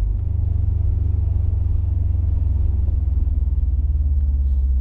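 Subaru STI's turbocharged 2.5-litre flat-four engine running, a steady low rumble. A slightly higher hum joins in a little past halfway.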